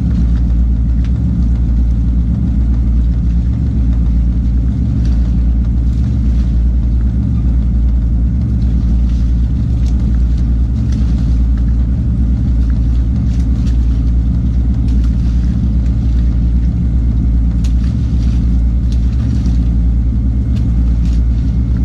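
Fishing boat's engine running steadily, a deep continuous drone, with faint scattered clicks from the deck.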